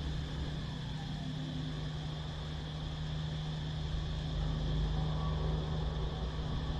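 Steady, unbroken cicada drone, high-pitched, over a constant low hum and rumble.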